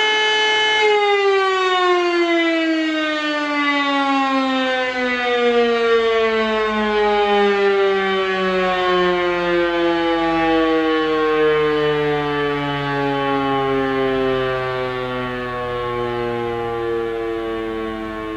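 E57 electric motor siren holding its steady tone, then switched off about a second in and winding down, its pitch sliding slowly and steadily lower as the rotor spins down.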